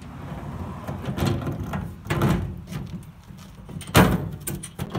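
Aluminium diamond-plate cargo box shifted into place against a van's steel rear door: irregular scraping and knocking of metal, with a sharp knock about four seconds in.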